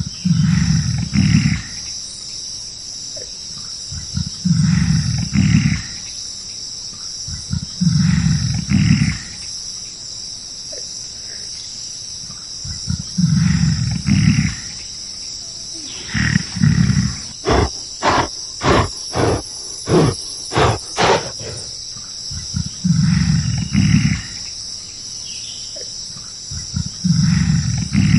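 Gorilla roaring in low, loud calls of about a second and a half each, repeated every few seconds. About halfway through comes a quick run of about nine short, sharp sounds, roughly two a second, before the roars resume.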